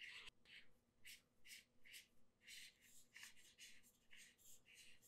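Aluminium tube and tail cap of a Convoy L21B flashlight being screwed together on their threads: faint, short scratchy rasps, about two a second.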